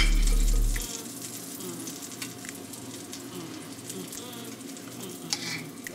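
Pancake batter sizzling in a hot frying pan as it is poured in, with the spoon scraping and clicking against the dish. A loud low hum sounds for about the first second.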